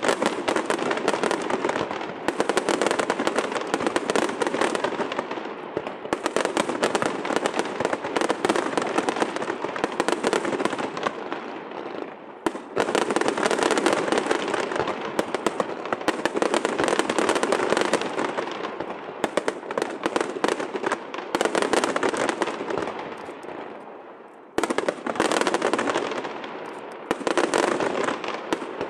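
Aerial fireworks display: a dense barrage of rapid pops and bangs from bursting shells. The barrage fades twice, about 12 and 24 seconds in, and each time surges back abruptly.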